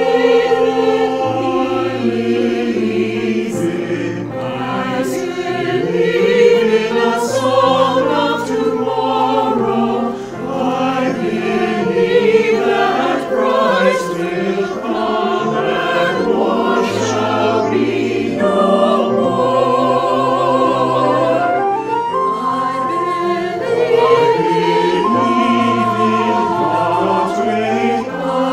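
Mixed church choir of men's and women's voices singing a sacred anthem in harmony, with a flute accompanying.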